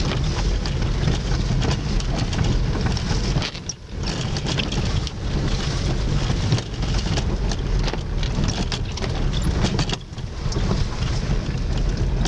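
Car driving on a wet rural road, heard from inside the cabin: a steady rumble of engine and tyres with many small knocks and crackles of water and grit under the wheels. The noise dips briefly about four seconds in and again near ten seconds.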